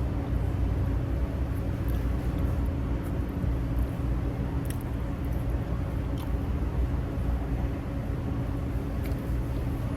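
Steady low hum of an idling car engine, with faint small clicks of crab shells being handled and eaten scattered through it.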